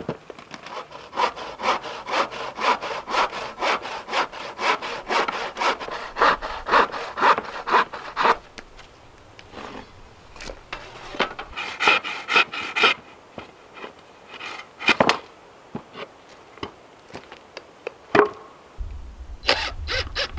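Hand saw cutting across a wooden board, a long run of quick, even back-and-forth strokes. After a pause come a few more strokes, then a few single knocks.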